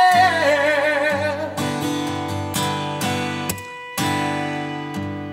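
Music: acoustic guitar strumming chords, with a male voice holding a wavering sung "yeah" over the first second and a half. The strumming breaks off briefly about three and a half seconds in, then resumes.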